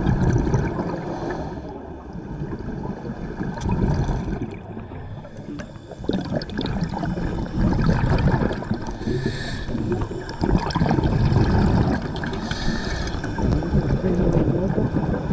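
Muffled underwater rumble and water noise picked up by a camera on a riverbed, swelling and easing, with scattered clicks and knocks.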